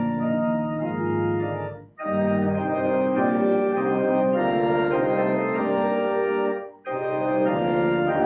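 Organ playing slow, sustained chords, breaking off briefly twice between phrases, about two seconds in and again near seven seconds.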